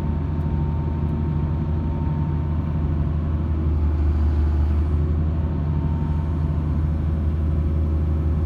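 Hitachi EX230LC-5 excavator's diesel engine running steadily, a low even hum that grows slightly louder about four seconds in.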